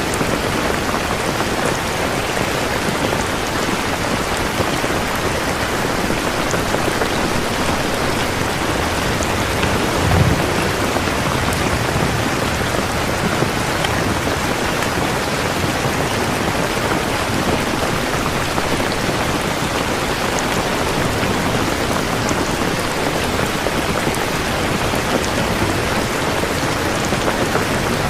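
Steady, heavy rain falling on surfaces, a dense, even patter, with one brief low thump about ten seconds in.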